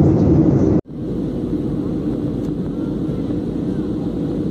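Steady jet airliner cabin rumble of engines and airflow inside a Boeing 737. About a second in it cuts out abruptly and resumes as a slightly quieter steady rumble, heard while the aircraft descends.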